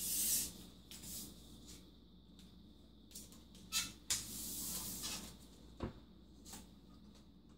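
Handling noises as a tape measure is fetched: a short rush at the start, then sharp clicks and a rushing scrape lasting about a second in the middle, and a single knock a little later, over a faint steady hum.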